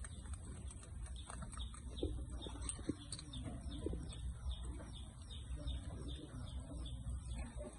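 Birds calling in the background: short high chirps repeated a few times a second over a steady low rumble, with a few soft clicks and lower calls in the middle.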